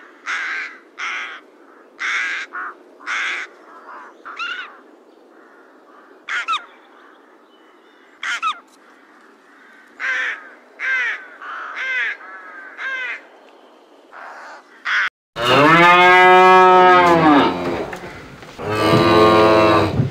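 A run of short, separate animal calls, each under half a second, repeated irregularly. About three-quarters of the way through, a cow moos loudly: one long moo, then a second one near the end.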